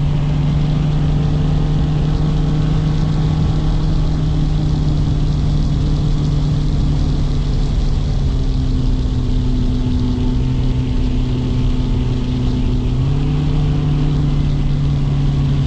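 Bass boat outboard motor running steadily at speed, a loud even drone. Its pitch drops slightly about halfway through and comes back up near the end.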